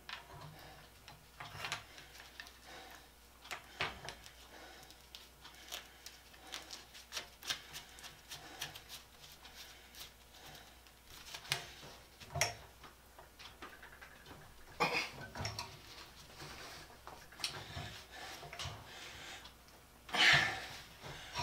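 Miller Falls No. 120 breast drill cranked by hand in its low gear, its gears and the bit cutting into steel at a weld giving irregular light clicks and ticks. One louder sound near the end.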